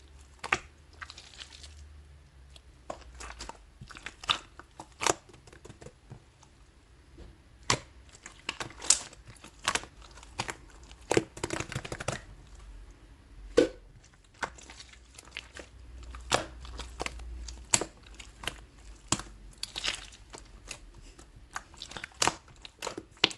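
Slime being squeezed and stretched by hand, giving irregular sharp clicking pops and crackles.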